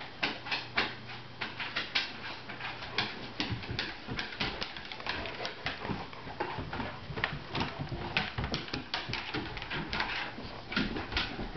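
Two large white dogs wrestling, with a rapid, irregular clatter of claws clicking and scrabbling on a wooden floor and the dull bumps of their bodies.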